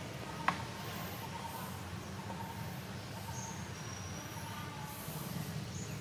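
Steady low outdoor background rumble with faint high chirps, and one sharp click about half a second in.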